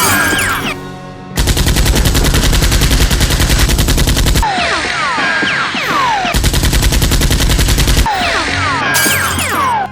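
Two long bursts of rapid automatic gunfire sound effects, with short falling whistles in the pauses between them.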